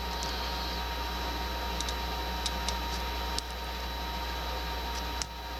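Faint, scattered ticks of a lock pick working the pin stack of a Doit 40 mm laminated padlock during single-pin picking, over a steady electrical hum and hiss.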